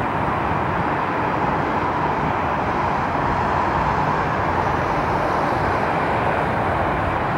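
Jet engines of a Boeing 767-300 at take-off thrust as it climbs away after lift-off: a steady, even rushing noise with no rise or fall.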